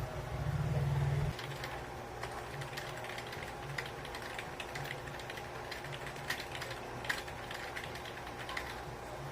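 Rapid typing on a computer keyboard, a quick run of key clicks during a typing test, over a steady low hum. A louder low rumble fills the first second or so, before the typing starts.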